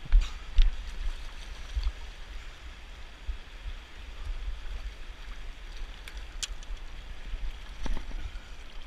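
Shallow river water rushing steadily over cobbles, with a low rumble and a few sharp clicks and knocks close by, the loudest near the start and again near the end.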